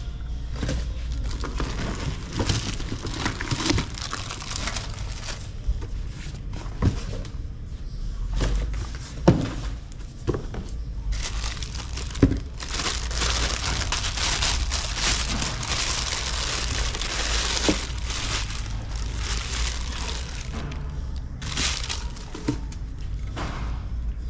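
Plastic wrapping crinkling and rustling as it is handled and pulled off a subwoofer, with a few sharp knocks along the way. The rustling is thickest in the middle of the stretch.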